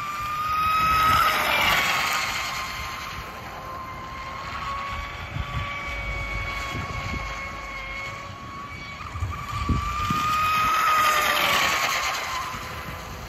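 EPL-1 RC outrigger hydro's brushless electric motor and propeller whining steadily at high speed. It rises in pitch right at the start and grows loudest as the boat passes close, about a second in and again near the end.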